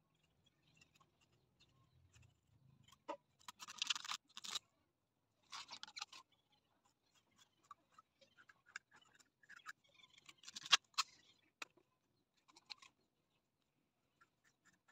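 Knife cutting and peeling the sheaths off fresh bamboo shoots: scattered small clicks and a few short scraping rustles, the loudest a little after the start, again near the middle and about two-thirds through.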